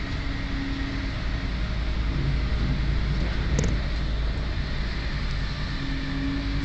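Steady running rumble of a regional train heard from inside the carriage as it travels at speed. A faint hum sits over it at the start and again near the end, and there is one short click about three and a half seconds in.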